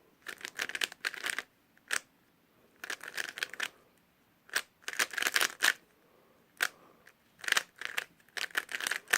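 Shengshou Legend 3x3 speedcube being turned by hand: quick runs of plastic clicking as the layers turn, in bursts of about a second with short pauses between them.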